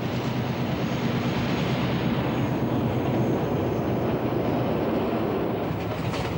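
Diesel locomotive hauling a passenger train across a steel trestle bridge: a loud, steady engine drone with the rumble of the train running over the bridge, and a faint high whine above it for most of the time.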